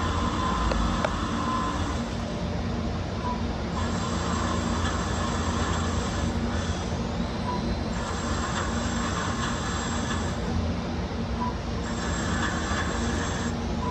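Swiss-type (sliding headstock) CNC lathe machining under cutting oil: a steady machine hum, with stretches of higher cutting noise coming and going about every four seconds.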